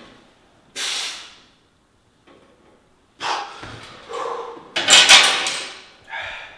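A person's forceful breaths and grunts of effort while exercising, five in a row with gaps between them, the loudest about five seconds in.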